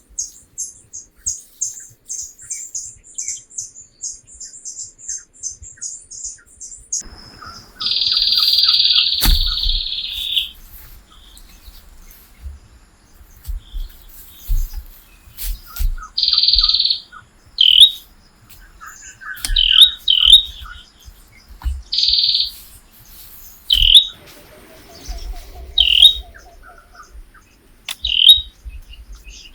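Birds calling: a fast, high chittering series for the first seven seconds, then loud chirps, one drawn-out call about eight seconds in and shorter ones every couple of seconds after it. Scattered soft low thuds sit underneath.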